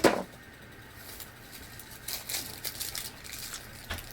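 A short, loud sound right at the start, then snack packaging crinkling and rustling in short bouts from about two seconds in.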